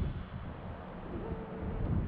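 Wind buffeting the microphone on a city street: an uneven low rumble over a steady hiss of traffic, with a faint short whine about a second and a half in.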